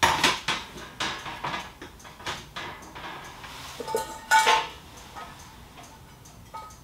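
Light metal clinks and clatter as small metal objects are handled, a string of sharp knocks. Around four seconds in come a few louder ringing clinks, and then it quietens.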